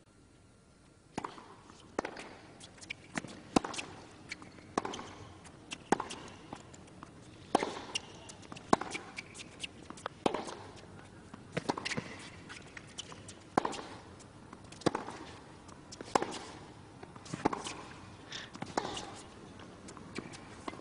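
Tennis ball struck back and forth by rackets in a long rally, a string of sharp pops with the ball's bounces on the court between them, starting about a second in.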